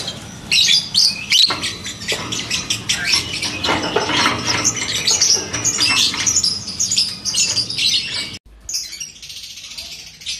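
Caged Fischer's lovebird chirping in a long, rapid run of high chirps. The chirping cuts off abruptly about eight seconds in, and a fainter, fast-repeating high sound follows.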